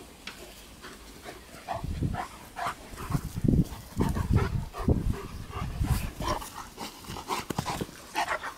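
A Berger Picard puppy and a larger black dog in rough play, making a string of short, low play-growls and barks. They start about two seconds in and die away after about six seconds.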